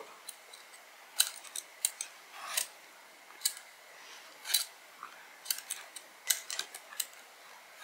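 Metal Y-peeler scraping strips off a raw carrot: about a dozen short, crisp scrapes at uneven intervals.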